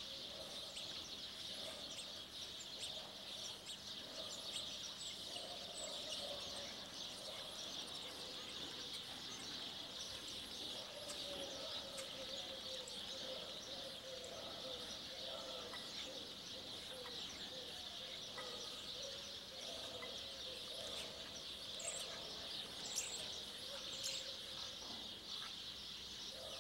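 A male spotless starling singing a long, rambling song of short clicks, rattles and whistles, with a few sharper high clicks near the end, over a steady high hiss.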